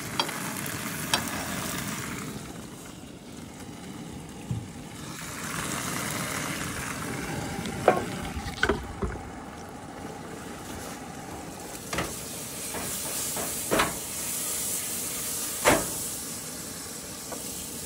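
Salmon fillet sizzling in butter and Thai chili sauce in a frying pan on a propane camp stove, with a spatula scraping and knocking against the pan several times in the second half.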